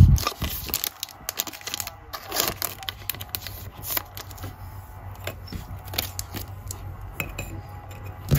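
Crinkling and crackling of a plastic card sleeve and a foil trading-card pack wrapper being handled, with scattered small clicks and a low thump right at the start.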